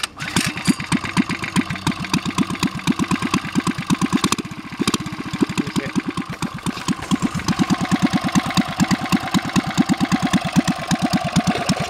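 Coleman CT100U mini bike's small single-cylinder engine starting cold on choke and running with even firing pulses. It briefly stumbles about four and a half seconds in, then keeps running as it warms up.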